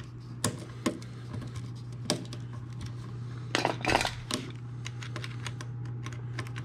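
Scattered light clicks and taps of copper wire and a plastic wall receptacle being handled as the hot wire is hooked onto the receptacle's brass screw terminal, with a short cluster of louder ticks and rustling about halfway through.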